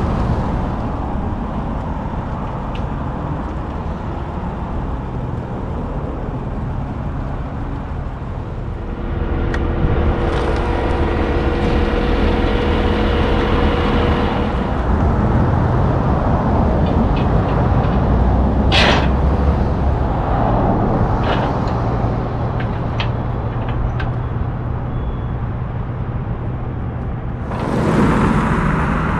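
Heavy diesel truck engine of a Peterbilt car-carrier rig running at idle, a steady low rumble. A steady whine runs for about five seconds near the middle, and a short sharp hiss of air comes about two-thirds through.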